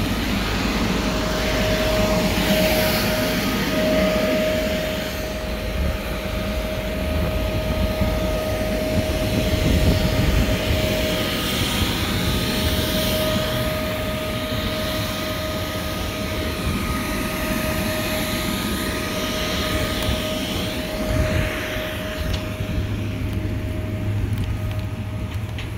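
Electric inflation blower of an inflatable obstacle course running steadily, a constant motor drone with a steady whine.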